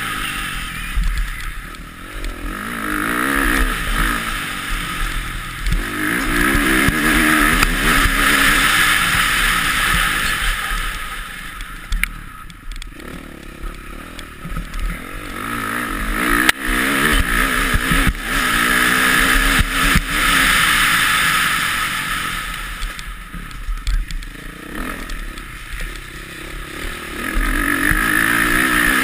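Motocross bike engine being raced, heard from the rider's helmet: it revs up hard and eases off in repeated surges, pitch rising and falling through the gears. A few sharp knocks from the bike over bumps come through around the middle.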